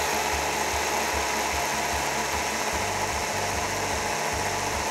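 A Minipimer hand blender's chopper attachment running steadily, its blade grinding rolled oats into oat flour.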